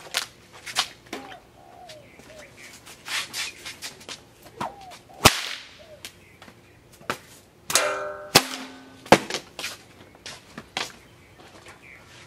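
Homemade paracord bullwhip cracking again and again: a string of sharp, loud cracks with smaller snaps between them, the loudest about five seconds in.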